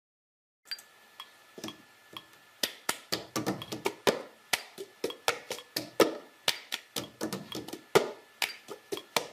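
Irregular sharp taps and clicks, about two or three a second, over a faint steady high-pitched tone.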